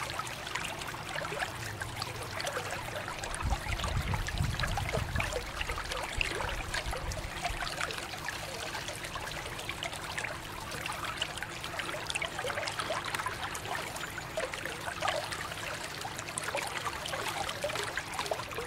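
A stream of running water splashing over a plastic toy dump truck held in the hands and into a shallow pool of water below, steady throughout. A low rumble joins it for a few seconds about four seconds in.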